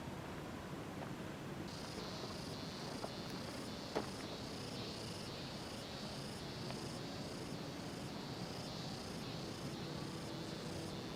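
An insect calling in a high, even run of pulses, about two a second, starting about two seconds in, over faint background hiss. A single sharp click comes about four seconds in.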